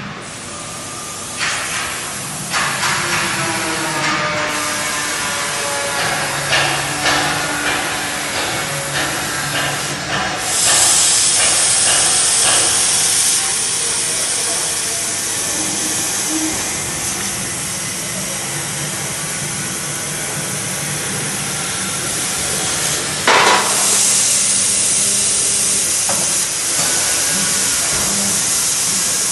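Fiber laser cutter working 10 mm carbon steel. In the first ten seconds its motors whine in steady tones with a run of sharp clicks. Then from about ten seconds in, the cutting head's assist gas sets up a loud steady hiss as it pierces and cuts the plate, with a louder burst a little before the end.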